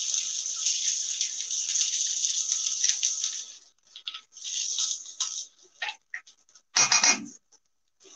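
Birria tacos sizzling on a Blackstone flat-top griddle. The sizzle is a steady hiss for the first few seconds, then comes and goes in short bursts, with one louder burst about seven seconds in.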